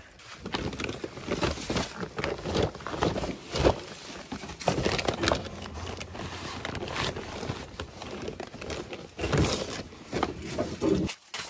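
Rustling, knocking and shuffling of camping gear being handled in a vehicle's back seat: a tote bag of boxes lifted out and a sleeping bag in a nylon stuff sack grabbed, in irregular clattery bursts.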